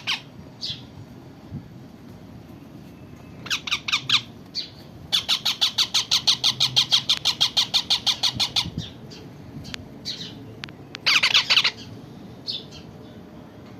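Pet parrot squawking: a few short harsh calls, then a fast run of harsh calls repeated about eight times a second for three to four seconds, and another short burst of calls later.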